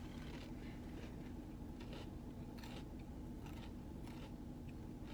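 Crunching bites and chewing of a crispy fried chicken sandwich, a handful of short crackly crunches over a steady low hum.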